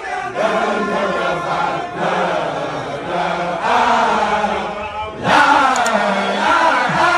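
A large crowd of voices chanting together in unison, growing louder a little after five seconds in.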